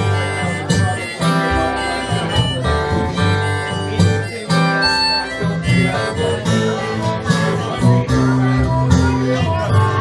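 Acoustic blues played live without vocals: a strummed and picked Eastman E10OM acoustic guitar, with a harmonica playing held notes over it.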